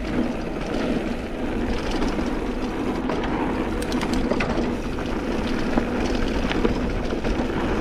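Mountain bike rolling down a dirt singletrack: a steady rush of tyre and riding noise with the chain and frame rattling, and a cluster of sharp clicks and knocks over bumps around the middle.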